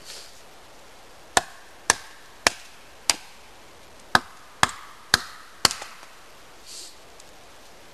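Eight chopping blows of a small axe into a thin standing dead tree trunk, cutting firewood, in two runs of four about two a second.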